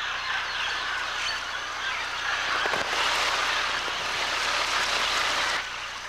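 A large flock of parrots calling all at once, a dense overlapping din of many voices. It breaks off suddenly a little before the end.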